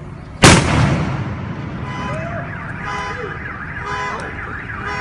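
A loud firework explosion goes off about half a second in, followed by car alarms sounding with fast, repeating up-and-down wailing tones.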